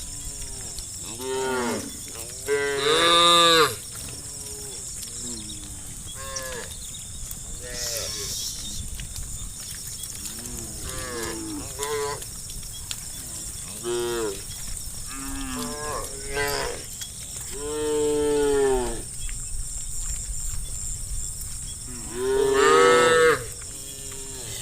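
Cattle of a herd mooing over and over, many separate calls of differing pitch, some short and some drawn out, with the loudest moos about three seconds in, around eighteen seconds and near the end.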